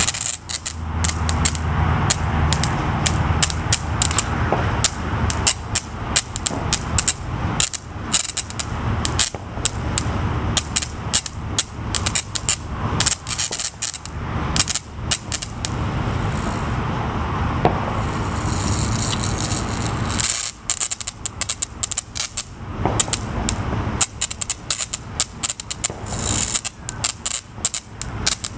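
Electric bug zapper crackling and snapping again and again as insects strike its charged grid, many irregular sharp zaps a second. A few seconds past the middle the zaps thin out into a steadier hiss, then the rapid snapping returns.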